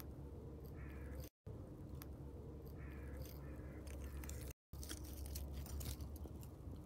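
Faint outdoor background: a steady low hum, with two short, faint calls about a second and three seconds in, and a few soft clicks near the end. The sound breaks off to silence twice for an instant.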